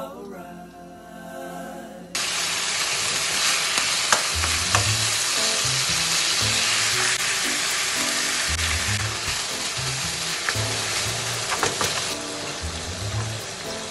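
Ground beef sizzling in a frying pan as its cooking water boils off, stirred with a wooden spatula that now and then clicks against the pan. The sizzle starts suddenly about two seconds in and eases a little near the end.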